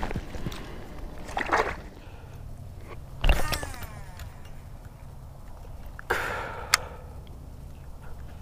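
Water sloshing and wet weed rustling as vegetation is stripped off a hollow-body frog lure. Then a cast: a sharp swish and a whirring casting-reel spool falling in pitch. Later a short rush of noise ends in a sharp click.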